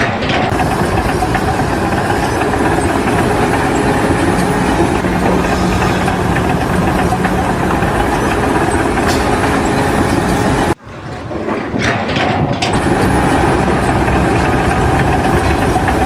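A heavy engine running steadily, loud and noisy, with a sudden break about eleven seconds in before it picks up again.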